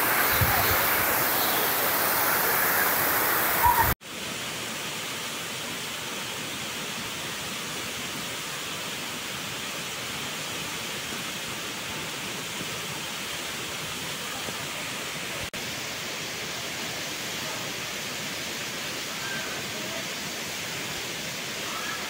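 Waterfall rushing as a steady, even roar of falling water. It is louder for the first four seconds, then drops suddenly to a quieter steady rush.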